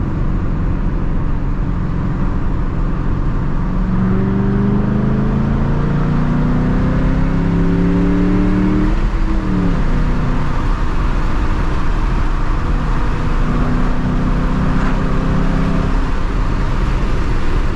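2007 Mustang GT's cammed 4.6-litre V8 pulling under acceleration over steady road noise. The revs climb from about four seconds in to about nine seconds, then fall sharply with an upshift, and the engine holds a steadier note afterwards.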